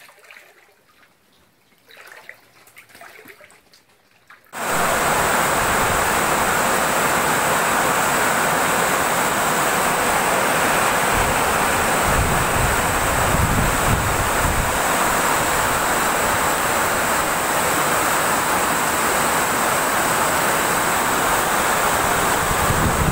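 Steady, loud rushing of water, as of heavy monsoon rain and floodwater, cutting in abruptly about four and a half seconds in after a quiet stretch, with low rumbling gusts in the middle.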